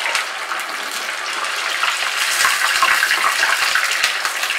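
Minced fish dumplings deep-frying in hot refined oil: a steady, dense sizzling of vigorously bubbling oil.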